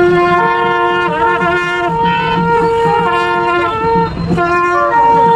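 Nadaswaram playing a melody of long held notes, stepping from one pitch to the next with quick ornamented slides, as processional temple music for the deity.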